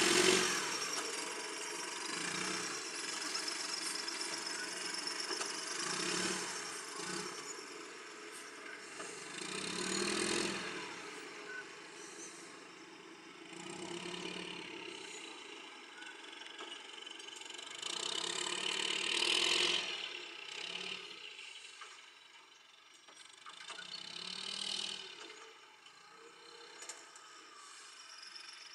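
Engine of a Roadrunner hay squeeze running and revving up and down in repeated swells as the machine lifts and moves hay bales; the loudest swell comes about two-thirds of the way through.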